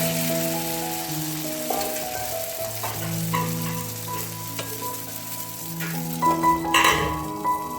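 Jackfruit batter frying and sizzling in hot coconut oil in a pan, with a brief louder burst near the end. Background music plays under it.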